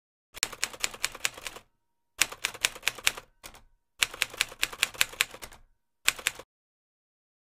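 Typewriter keystroke sound effect: runs of quick key clicks, about six a second, in five bursts with short pauses between them.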